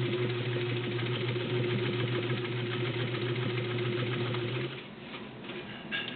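Morse 99K-clone straight-stitch sewing machine with its 1.2 amp motor running steadily as it stitches through five layers of denim. It stops about three-quarters of the way through, followed by a few light clicks near the end.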